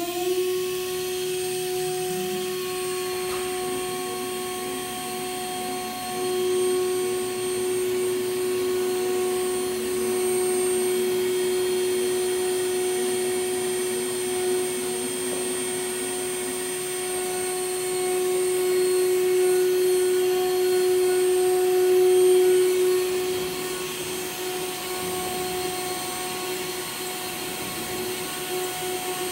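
Thermwood CS40 CNC router's spindle running at speed with a steady high whine, routing a wood sheet on the bed, over a rougher machine noise that swells and fades.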